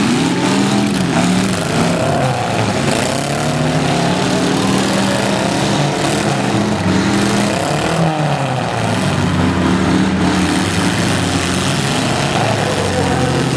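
Engines of several small demolition derby cars running loudly together, their pitch rising and falling repeatedly as the drivers rev up and back off.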